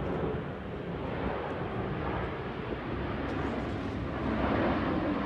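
Twin-engine jet airliner on approach to land, passing low overhead: a steady jet rumble that grows louder near the end.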